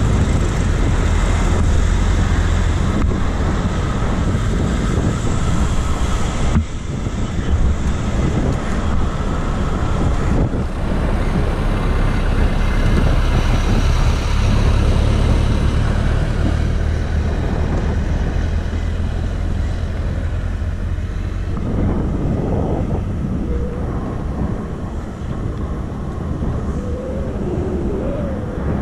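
Steady road traffic noise heard while riding a bicycle, under a heavy low rumble of wind on the microphone. It dips briefly about six and a half seconds in.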